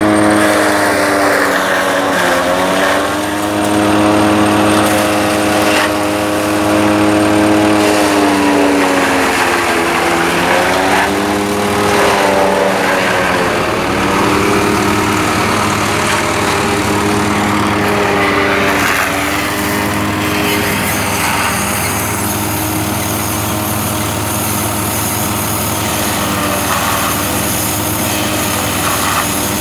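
Tractor engine running under load, powering a silage baler and bale wrapper; its note keeps sagging and recovering as the machine takes feed. About two-thirds of the way through the note steadies and a high whine joins it.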